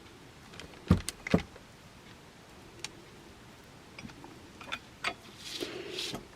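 Handling noise while hot-gluing rhinestone mesh onto a glass vase: two sharp knocks about a second in, then scattered light clicks and a brief rustle near the end.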